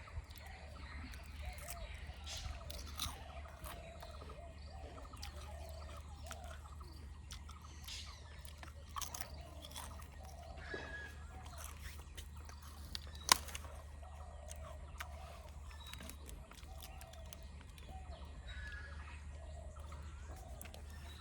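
Crunchy snack chips being chewed close to the microphone, a run of soft crunches and clicks with one sharper click about thirteen seconds in. Faint bird calls sound in the background.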